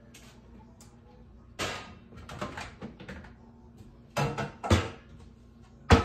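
Kitchen cabinet door opened and a skillet taken out and set down on the countertop: a string of clunks and clatters, the loudest two near the end.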